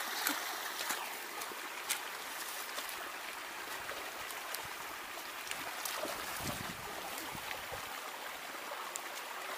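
Steady trickling and running of water, with a few faint clicks and soft knocks from work in the wet mud.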